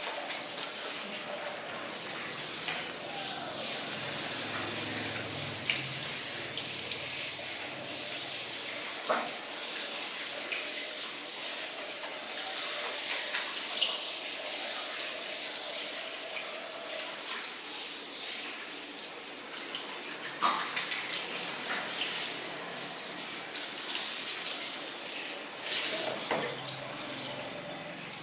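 Water running from a handheld shower sprayer over hair and into a salon shampoo basin, a steady hiss broken by a few brief clicks.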